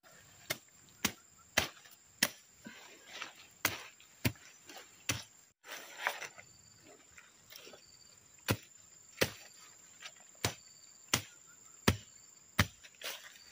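Machete chopping through woody brush and sapling stems: sharp, regular blows about every two-thirds of a second, with a pause of a couple of seconds about halfway through. A steady high thin tone runs underneath.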